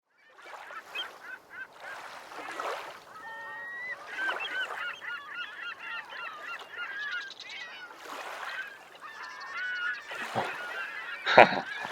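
Birds squawking and chirping, many short overlapping calls. A sharp knock near the end.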